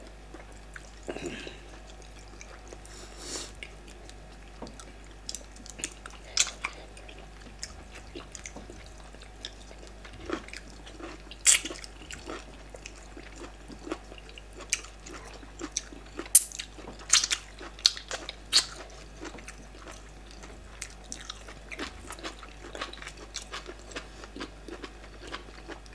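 Close-miked mukbang eating sounds: chewing and lip-smacking as two people eat soft yam fufu and bitter leaf cocoyam soup by hand, with irregular short wet clicks and smacks.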